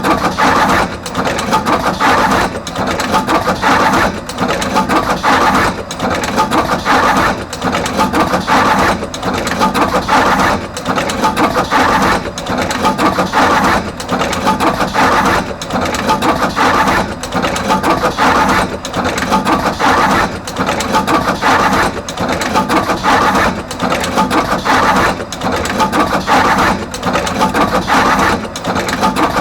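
Artos CR22 automatic wire cut-strip-crimp machine running continuously, crimping terminals onto both ends of each wire. Its mechanism keeps up a steady, repeating clatter of clicks and clacks.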